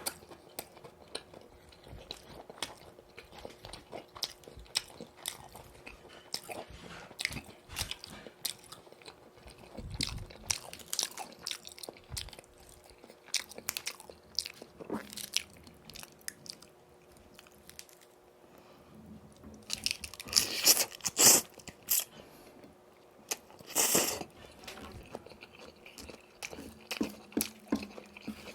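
Close-up biting and chewing of boneless fried chicken in yuringi sauce, with crisp crunches between quieter chews and the loudest crunching bites about two-thirds of the way through.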